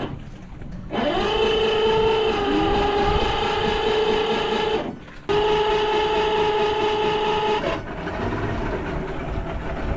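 Mercury 150 outboard being cranked on its electric starter, trying to start the engine after a fuel-starvation problem. There are two long cranking bursts, each whining up in pitch, holding steady, then cutting off sharply. From about eight seconds in a rougher, quieter rumble follows.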